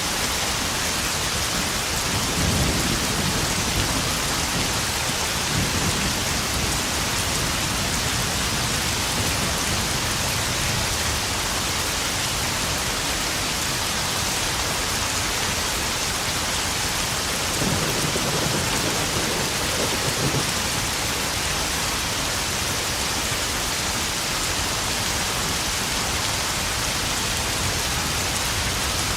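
Steady heavy rain falling and drumming on puddles during a spring thunderstorm. Low rolls of thunder come twice, a few seconds in and again past the middle.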